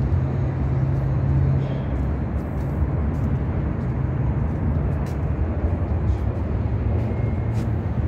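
Road traffic: a steady low rumble, with a low hum that fades about two seconds in.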